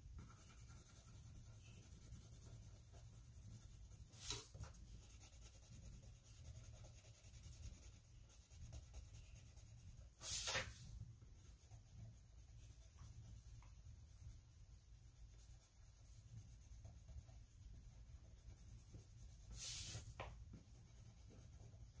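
Faint scratching of a colored pencil shading on paper over a low steady hum. Three brief louder noises come through, about 4, 10 and 20 seconds in, the middle one loudest.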